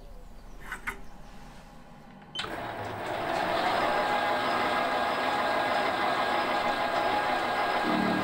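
A small workshop machine tool switches on about two and a half seconds in and runs steadily with a motor-and-gear whine.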